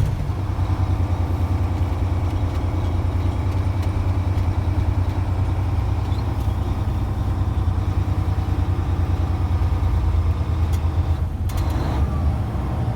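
Grain truck's engine running steadily at low speed: a low, even drone with a rapid firing pulse.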